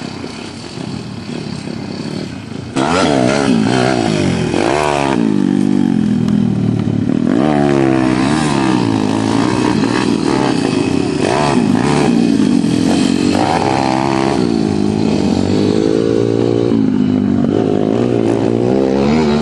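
Motocross dirt bikes riding the track, engines revving up and falling off over and over, sometimes more than one at a time. The sound gets suddenly louder about three seconds in.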